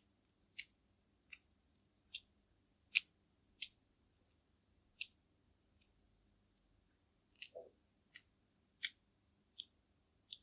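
Light, quick clicks and taps of makeup tools and containers being handled, about a dozen at uneven intervals, with one softer, duller tap about three quarters of the way through.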